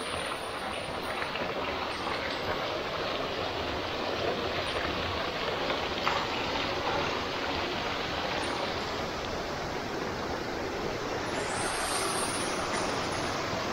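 Fast-flowing mountain stream: a steady wash of rushing water.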